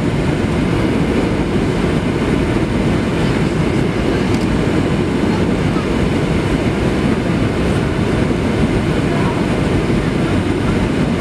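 Steady low cabin roar of a Boeing 737-700 on final approach, its CFM56 engines and the airflow heard from a window seat over the wing, flaps extended.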